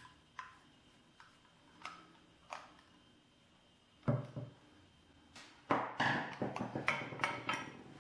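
Small screwdriver clicking on the screws of a Wi-Fi amplifier's metal case as it is taken apart, a few light ticks at first. About four seconds in there is a louder knock, and near the end a quick run of metallic clicks and clatter as the case is opened and handled.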